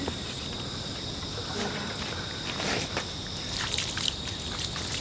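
Insects trilling in one steady, continuous high tone, with a few brief soft noises over it around the middle.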